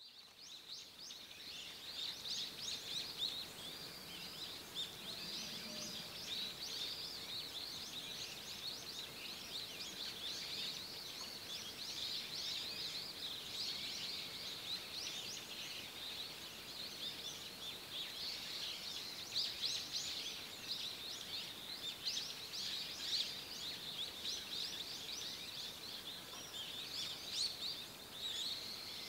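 Many small birds chirping together in the forest: a dense, overlapping chatter of short high calls that never lets up, over a faint background hiss.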